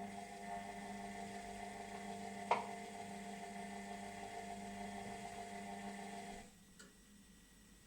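Washing machine drum turning on its motor with a steady whine, a single sharp knock about two and a half seconds in, and the motor stopping about six and a half seconds in. The knock recurs periodically while the drum spins, and the owner wonders whether worn drum bearings are the cause.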